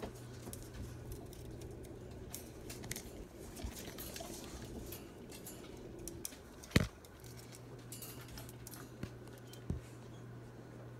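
Faint scratching, clicking and light rattling of marmosets climbing over and picking at a plastic-pipe foraging toy and its metal hooks. There is a sharp knock a little past the middle and a smaller one near the end, over a low steady hum.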